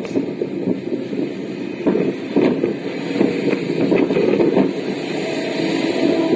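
Road and engine rumble inside a moving car, with heavy trucks travelling close behind, broken by a few short knocks. A steady low tone comes in about five seconds in.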